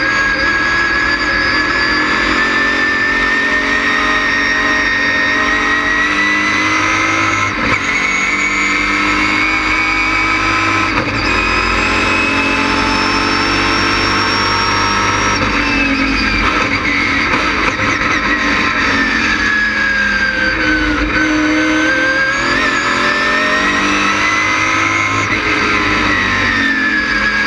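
LS6 V8 of a race stock car running hard, heard from inside the stripped cockpit. The engine note climbs steadily for about twelve seconds with two brief dips, falls away for several seconds past the middle as the revs drop, then climbs again and falls near the end.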